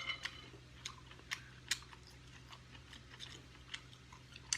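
A person chewing food close to the microphone: scattered soft wet clicks and smacks of the mouth at irregular intervals, over a faint steady low hum.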